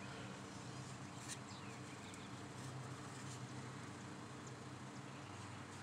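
Faint ambience: a steady low hum with a few short, faint bird chirps over it and a couple of light clicks.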